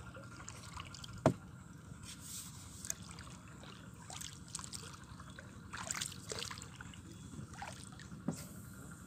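Small trickling and lapping water sounds around a wooden boat, with one sharp knock about a second in.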